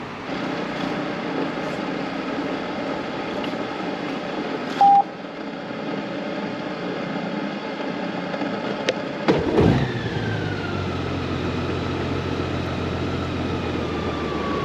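Honda Gold Wing flat-six engine being started: a short burst about two-thirds of the way through, then a steady idle whose pitch slowly falls as it settles. A short single beep comes earlier.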